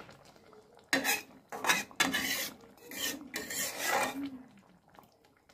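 A utensil scraping and stirring in a cooking pot: several rasping strokes in a row, starting about a second in and ending near the end.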